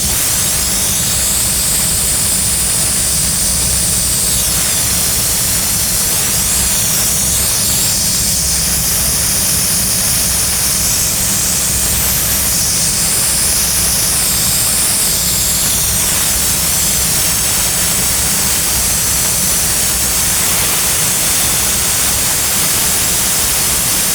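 Brazing torch flame hissing steadily while a copper refrigerant tee fitting is brazed.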